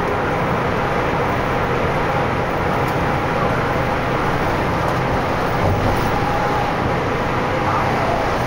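Steady road and engine noise heard from inside a vehicle cruising along an expressway: an even rumble and hiss with a faint steady hum, no sudden events.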